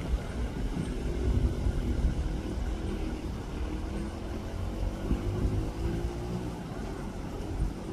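A motor vehicle's engine running over a low rumble, its pitch climbing slowly through the middle as it pulls away or speeds up.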